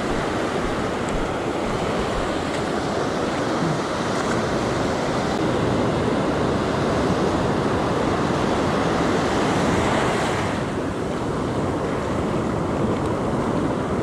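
Ocean surf breaking and washing up the sand in a steady rush, swelling somewhat and then easing off about ten seconds in.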